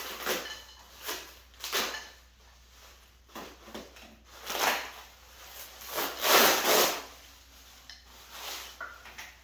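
Parts and packaging being handled and rubbed while a go-kart-type primary clutch is unboxed: a series of short scrapes and rustles. The longest and loudest comes about six seconds in.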